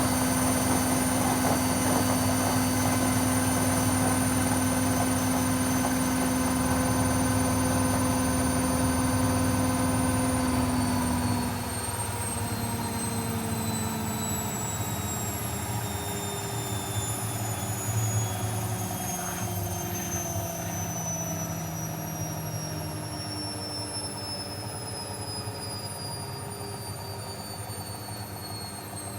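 Techwood WB 91042I washing machine spinning at speed with a steady motor whine; about eleven seconds in, the drive cuts out and the drum coasts down, its whine falling steadily in pitch as the spin ends.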